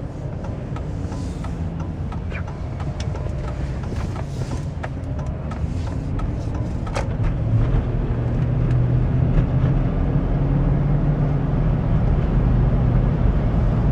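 Cab interior sound of a 2004 Chevy Avalanche's 5.3-litre V8 truck driving through a turn and then accelerating. The engine note grows louder in the second half, with a few light clicks. There is not much of a power steering whine after the fluid top-up.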